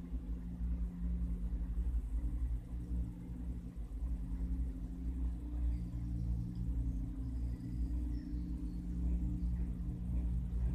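Steady low rumble and hum of a cable-car gondola cabin travelling along the haul rope, heard from inside the cabin.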